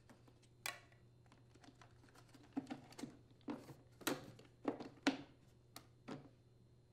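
Light plastic clicks and knocks, about ten irregular ones, as the plastic engine housing of a Husqvarna 150BT backpack leaf blower is pressed back into place over the engine.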